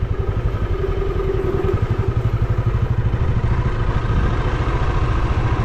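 Motorcycle engine running steadily under way, a rapid, even exhaust beat.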